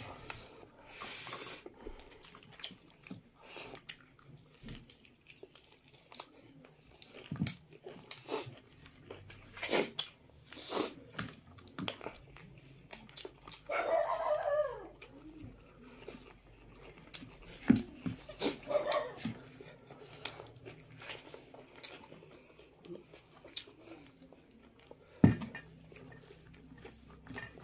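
Close-up eating sounds of two people eating rice and meat with their hands: chewing, lip-smacking and fingers working food on a steel plate, heard as many small sharp clicks. There is a short whining call about halfway through, and a fainter one a few seconds later.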